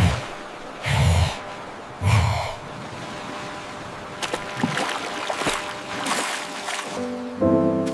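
Sea water splashing and washing: three short, loud splashing surges about a second apart, then a softer wash of water with small scattered splashes. String and piano music starts near the end.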